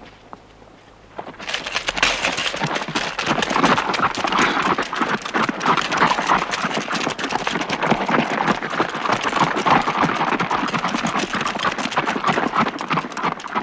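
Hoofbeats of a group of horses on dry ground: a dense clatter of many hooves that starts about a second in and keeps on.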